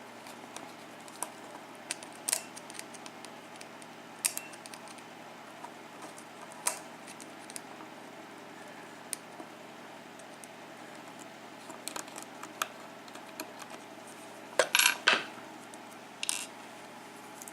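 Scattered small metallic clicks and clinks as the little nut is worked off the back of a Schlage KIK lock cylinder, with a quick cluster of louder clinks near the end.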